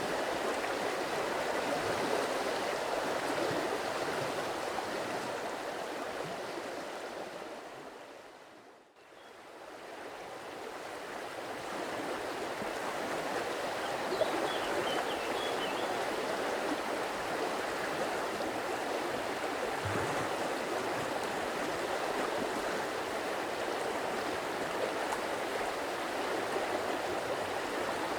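Stream water running steadily over stones, an even rushing and gurgling. About eight seconds in it fades down almost to silence and swells back up over the next few seconds; a few faint high chirps come about halfway through.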